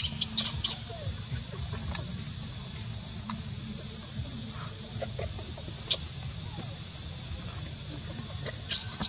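Steady high-pitched drone of insects, over a low rumble, with scattered faint short chirps and squeaks and a brief louder burst shortly before the end.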